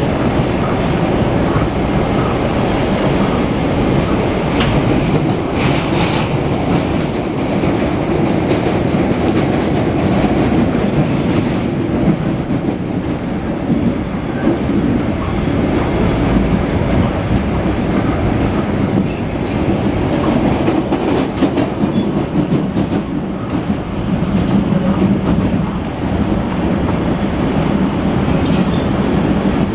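PATH rapid-transit train running at speed, heard from inside the car: a steady rumble of wheels on the rails and traction motors.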